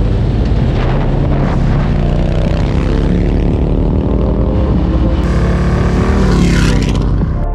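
Motorcycle engines running at road speed, the engine note rising and falling with the throttle. About six seconds in, a bike passes close by, its sound rising and then dropping away.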